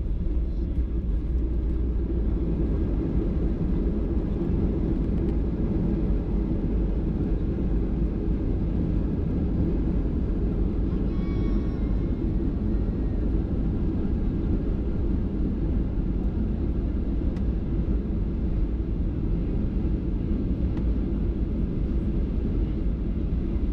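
Steady low rumble inside the cabin of a Boeing 737-800 rolling down the runway just after touchdown, with the ground spoilers up: engine and landing-gear noise that holds level, with no rise or fall.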